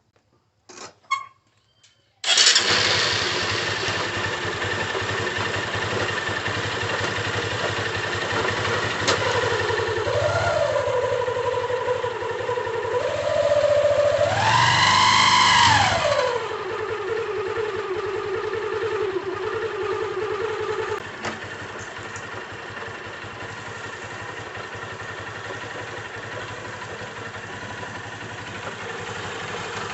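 Motorcycle engine started after a few clicks about two seconds in, then idling, with a rev that rises and falls back around the middle before settling to idle. It runs with an ugly noise that the owner places on the clutch side, where the clutch is also slipping.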